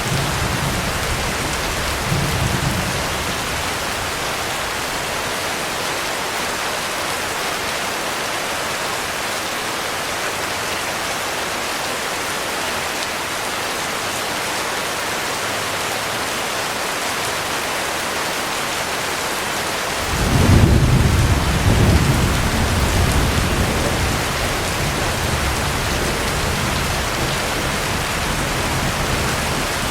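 Heavy rain falling steadily. About twenty seconds in, a roll of thunder rumbles up and slowly fades under the rain, after a fainter rumble near the start.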